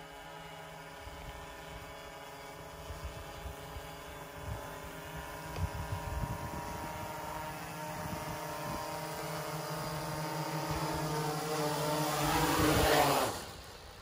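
Small electric quadcopter's motors and propellers humming steadily, growing louder as it comes in under its return-to-launch failsafe, with gusts of rotor wash buffeting the microphone. A little before the end the motor hum cuts off sharply.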